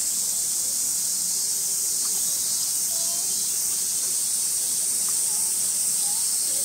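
Steady, high-pitched drone of a summer cicada chorus, an unbroken hiss-like buzz.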